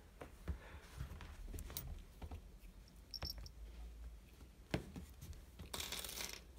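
Light scratching and scattered taps from a kitten's paws and claws batting a pom-pom wand toy on a rug, with a short rustle near the end.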